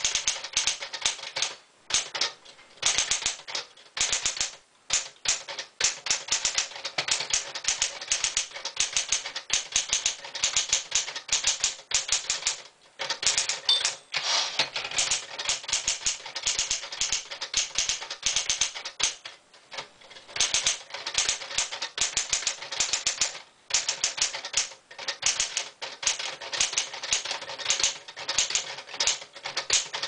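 Smith-Corona Sterling manual portable typewriter being typed on fast: a rapid clatter of key strikes in runs, broken by short pauses every few seconds.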